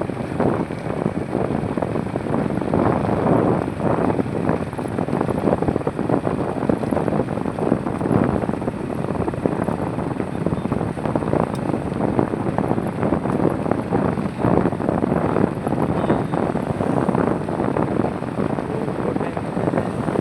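Continuous highway traffic: engines and tyres of passing vehicles in a steady, fluctuating rumble, with wind buffeting the microphone.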